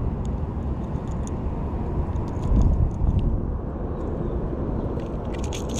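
Steady low rumble of wind buffeting the camera microphone. Near the end come a few light metallic clicks and rattles as the Rat-L-Trap lipless crankbait and its treble hooks are worked free of the fish's mouth.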